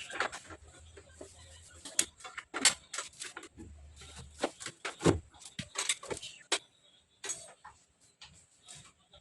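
Irregular clicks and knocks of hand tools and metal parts being handled while the car battery is reconnected.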